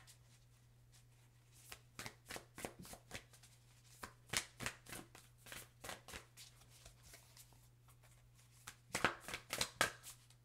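A deck of oracle cards being shuffled by hand: irregular runs of quick soft card slaps and flicks, starting after a short pause and busiest near the end.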